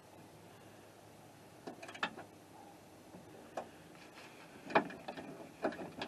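A handful of short, sharp clicks and light knocks, spaced irregularly, with the loudest about three quarters of the way through. They come from small parts and tools being handled while the truck door's inside handle cable is being replaced.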